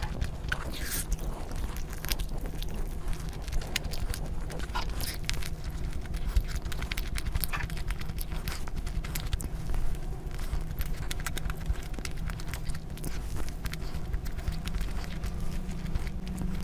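Close-miked eating: chewing with irregular sharp mouth clicks and crunches, over a steady low rumble.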